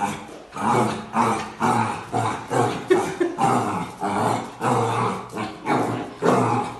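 Black puppy barking and growling at its own reflection in a mirror, in short bursts repeating about twice a second.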